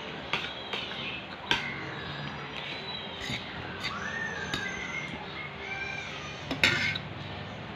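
Metal spoon and fork clinking and scraping against a plate of rice: several sharp clinks spread through, the loudest cluster near the end. Faint wavering high tones sound underneath in the middle.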